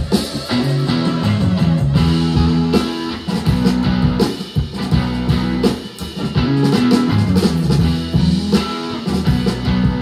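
Guitar-led rock music with drums, played back through a Fosi Audio V3 amplifier for an op-amp listening comparison. Partway through, the amplifier's NE5532 op amps give way to Burr-Brown OPA2604AP chips.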